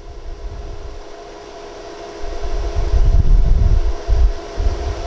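Steady machine hum made of several level tones, with an uneven low rumble under it that grows louder about two seconds in.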